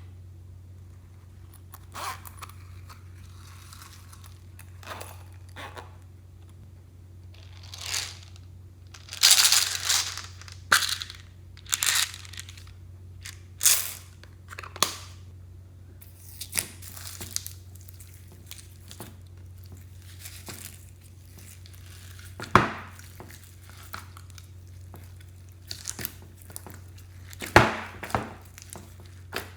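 Hands stretching and squishing slime: irregular bursts of sticky crackling and tearing, the loudest ones clustered in the middle, with quieter pauses between.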